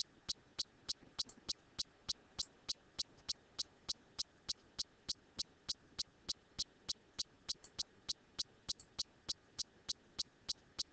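Steady, evenly spaced ticking clicks, about three a second, with a few extra clicks mixed in about eight to nine seconds in.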